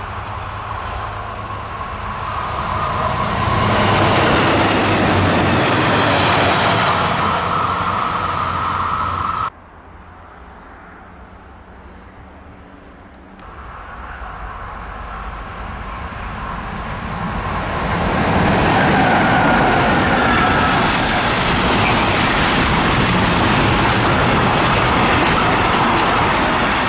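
A rail vehicle passing on the track, cut off abruptly about a third of the way in. Then a locomotive-hauled container freight train approaches and rolls past close by, its flat wagons rumbling and clattering over the rails, loudest in the second half.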